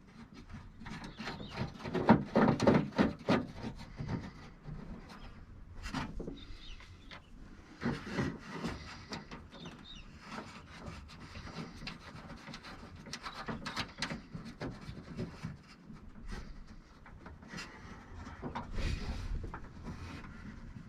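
Hands working inside a 1989 Subaru Brumby's door, fitting nuts onto the studs of the replacement outer door handle: irregular metal clicks, rubbing and scraping, busiest about two to three seconds in.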